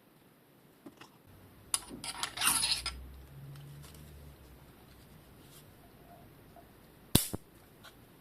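Small metal bicycle headset parts clinking and scraping as they are handled, with a brief clatter about two seconds in and two sharp metallic clicks near the end.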